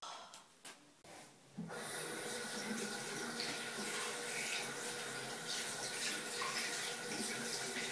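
Bathroom faucet running a steady stream of water into a sink basin, starting about one and a half seconds in.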